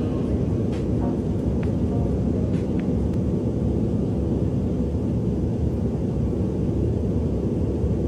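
Steady low rumble of an airliner cabin in flight, with a few faint clicks in the first few seconds.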